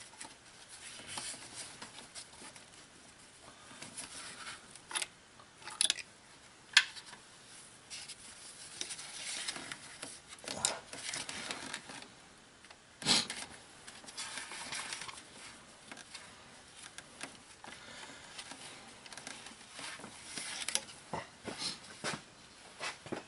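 Gloved hands handling a car's ignition distributor and the parts around it: quiet rustling and rubbing with scattered clicks and knocks, the sharpest about seven seconds in and another about thirteen seconds in.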